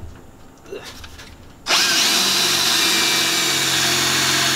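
Cordless drill boring into the car's steel trunk floor and frame rail: after a few light clicks it starts suddenly about a second and a half in and then runs steadily at full speed.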